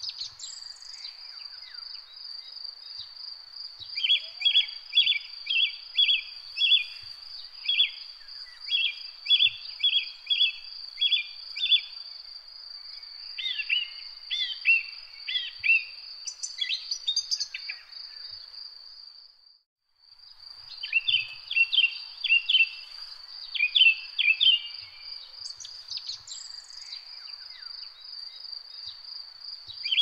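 Nature ambience: a steady, high insect trill with repeated short bird chirps coming in runs over it. The sound drops out briefly a little under two-thirds through, then resumes.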